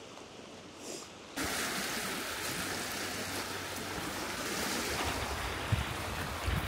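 Steady outdoor wind-and-water noise of lake water lapping and wind, starting suddenly about a second in, with wind gusts buffeting the microphone near the end.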